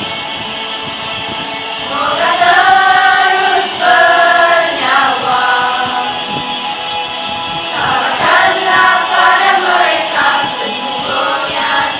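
Mixed choir of boys and girls singing held notes together, swelling louder about two seconds in and again around eight seconds in.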